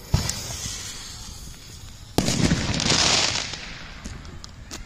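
The fuse of a consumer firework fountain catches from a lighter with a sudden hiss and sputter that fades over a second or so. About two seconds in comes a louder, sudden rushing hiss that lasts about a second and then dies down.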